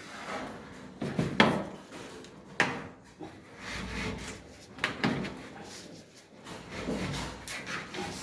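Irregular sharp knocks and scraping rubs, about six hard clacks spread out between handling noises.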